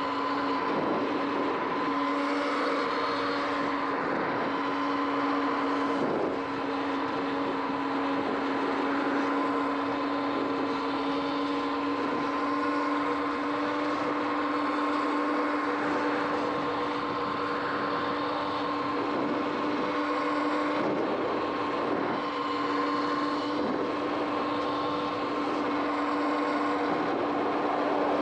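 Sur-Ron X electric dirt bike's motor whining at a steady pitch while cruising, over a steady hiss of tyres on wet road and wind.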